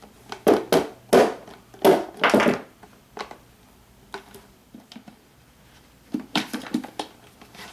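Hard plastic clicks and clacks from the agitator dogs of a Whirlpool washer's one-way clutch being pried and worked out of their housing by hand. Several sharp clicks come in the first three seconds, then another quick cluster near the end.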